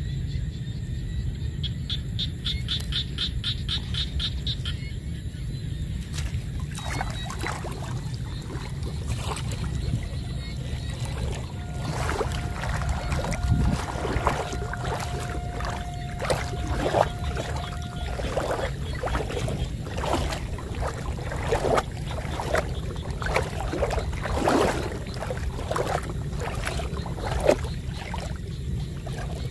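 Legs wading through shallow muddy water in a flooded rice paddy: a run of irregular splashes starting about seven seconds in, over a steady low rumble.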